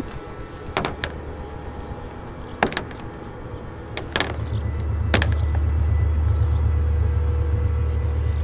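A hard briefcase handled and set down on a car's hood, making a few sharp clicks and knocks in the first half, one knock about four seconds in as it lands. A steady low rumble rises soon after and becomes the loudest sound.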